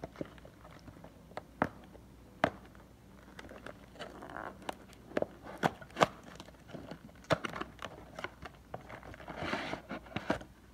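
Cardboard oil filter carton being handled and opened by gloved hands: scattered sharp taps and clicks, with brief papery rustling about four seconds in and again near the end.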